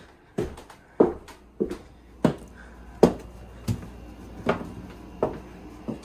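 Footsteps with hard heel strikes on a wooden floor, about ten steps at an even walking pace, in a small room.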